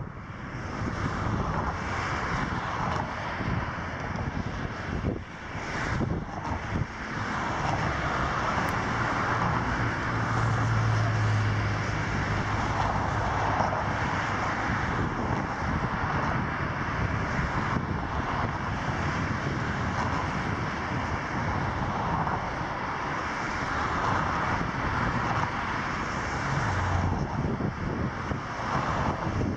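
Steady rushing outdoor noise with no words, with a low hum that swells about ten seconds in and again briefly near the end.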